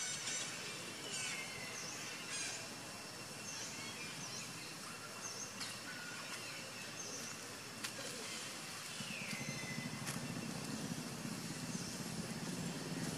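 Wild birds calling throughout: repeated short high chirps and a few clear whistles that slide down in pitch. A low, steady distant engine hum builds from about two-thirds of the way in.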